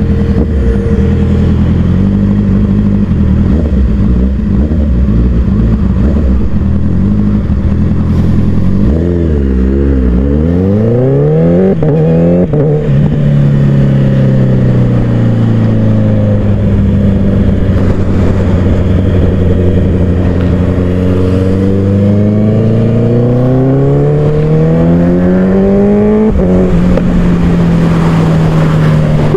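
Honda CBR motorcycle engine running under way. About ten seconds in, the revs dip and then climb quickly. They then climb slowly for over ten seconds, drop suddenly, and hold steady.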